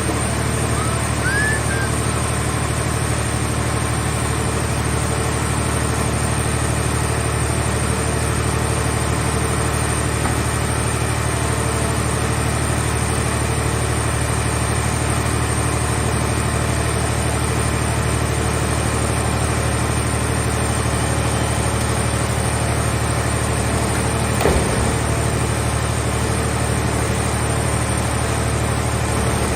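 Steady, even drone of the engine powering a hydraulic vehicle shell baler. A single knock comes about 24 seconds in.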